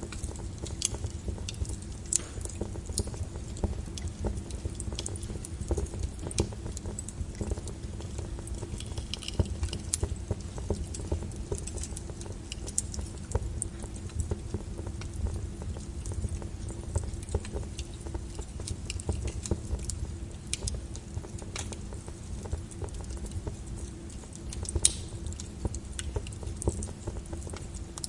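Steady deep brown-noise rumble with irregular sharp fire crackles popping through it.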